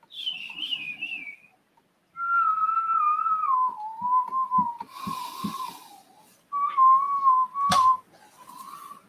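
A person whistling a slow tune in long, wavering notes, starting high and, after a short break, settling lower. Soft handling thumps sit underneath, with a sharp knock about eight seconds in.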